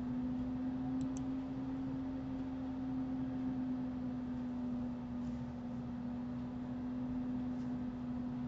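A steady low hum at one unchanging pitch, with two faint computer mouse clicks about a second in.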